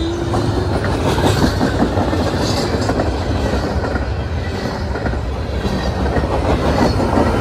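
Double-stack intermodal freight train rolling past close by: loaded container well cars passing with a steady rumble and irregular knocking of wheels on the track.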